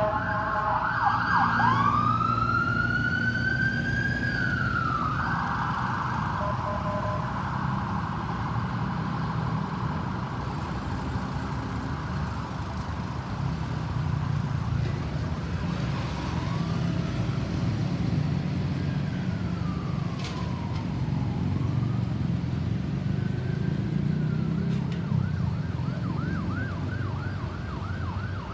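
Ambulance siren: a fast yelp cuts off, and a single slow wail rises and falls over a few seconds. Then come steady road traffic and engine noise with fainter siren sweeps, and the fast yelp starts again near the end.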